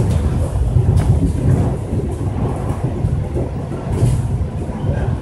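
Rubber-tyred monorail train running along its concrete guideway, heard from inside the front car: a steady low rumble as it picks up speed, with a sharp click about a second in and another near the end.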